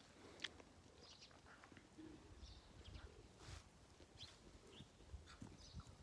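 Near silence: faint scattered ticks and rustles, with a few faint, short, high chirps of small birds.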